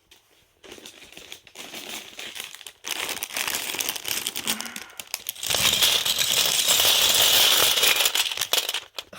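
Plastic bags of Lego pieces crinkling, with the small plastic pieces rattling and clattering. It starts after a brief quiet moment, grows from about three seconds in, and is loudest from about five and a half seconds in until just before the end.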